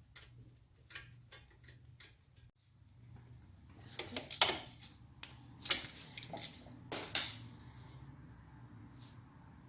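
Metal tools and parts being handled: a few sharp clinks and clanks in the middle, with fainter small clicks before them.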